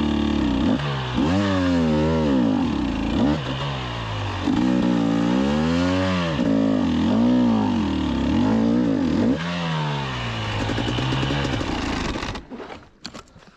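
GASGAS EC 300 two-stroke single-cylinder enduro engine revving up and down over and over under load on a rocky climb, then cutting out suddenly about twelve seconds in as the bike tips over and stalls, followed by a few knocks and scrapes.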